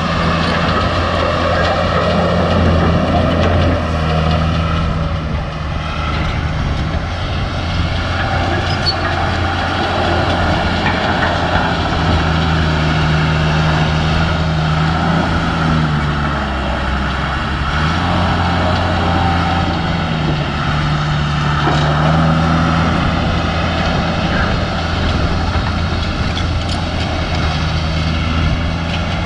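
Diesel engine of a piece of heavy earthmoving equipment running steadily, its speed dipping and rising again a couple of times, about halfway through and again a little later.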